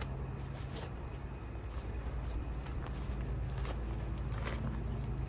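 Rustling and light clicks of gear being handled in a car's boot as a fabric stuff sack is pulled out, over a steady low hum.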